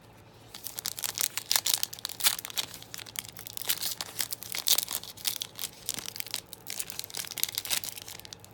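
Crinkling and tearing of a Panini Contenders trading card pack wrapper being pulled open, a dense crackle starting about half a second in; the pack is hard to open.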